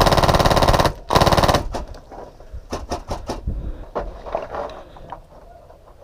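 HPA-powered airsoft MK46 with a Polarstar Fusion engine firing on full auto: a long burst that stops about a second in, then a second shorter burst. Scattered fainter pops and clicks follow.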